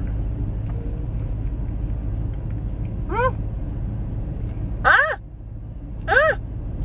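A woman with her mouth full gives three short, high 'mm' sounds of enjoyment while chewing, each rising and then falling in pitch, about three, five and six seconds in. A steady low rumble from the parked car's cabin lies underneath.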